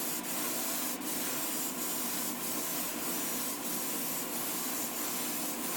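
Clear coat being sprayed onto a small diecast model car: a steady hiss of spray with a low steady hum underneath. It starts and cuts off abruptly.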